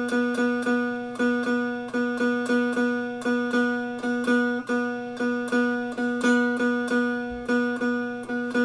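Unfretted single-string diddley bo with a cigar box body, its open string plucked over and over on one note in a loose rhythm, about three plucks a second, each ringing on until the next.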